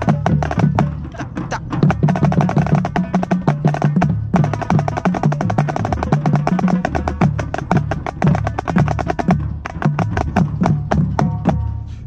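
Marching snare drum played in fast, crisp stick strokes from the player's own position, with the drumline's tenor drums sounding lower pitched tones alongside. The playing breaks off briefly about four seconds in, then carries on.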